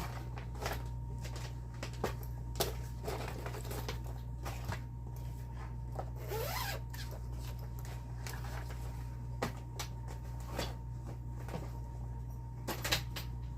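Handling noise: cross-stitch fabric and paper towel rustling and scraping, with light clicks and taps of a plastic Q-snap frame being clamped, a longer swish about halfway and two sharp clicks near the end.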